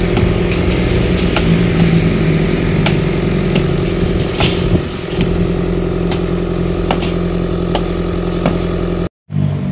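Engine running steadily, with scattered sharp knocks and clanks over it. The sound drops out for a moment near the end.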